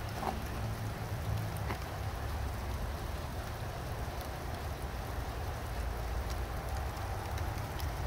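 Sleet and rain falling, a steady patter with scattered sharp ticks of ice pellets landing, over a low steady rumble.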